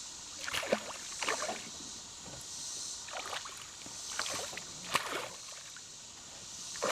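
Water splashing and sloshing against a small fishing boat on a river, several short irregular splashes over a steady rush of moving water.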